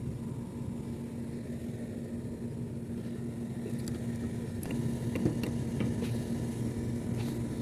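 Steady low machine hum with a constant tone, with a few light clicks about four to six seconds in and again near the end.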